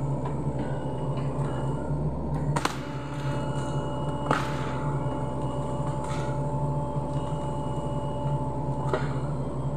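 Sany SY75C excavator's diesel engine running steadily, with a hydraulic whine, during forest land clearing. Three sharp cracks or knocks cut through it, the loudest about four seconds in.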